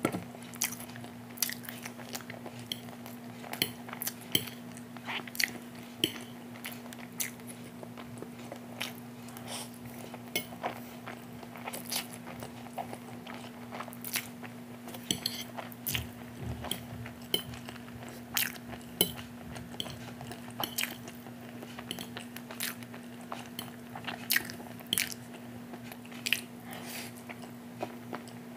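Close-miked eating of instant noodles and boiled egg: irregular wet mouth clicks and chewing, with a fork tapping on a glass plate, over a steady low hum.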